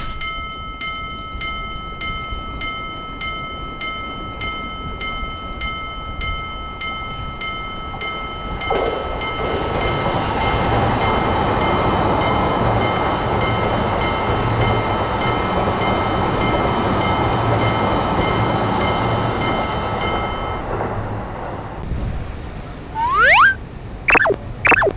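Japanese railroad crossing alarm ringing a steady electronic ding about twice a second while a train passes, its rumble swelling from about nine seconds in and dying away as the alarm stops after about twenty seconds. Near the end come a few short rising and falling whistle-like chirps.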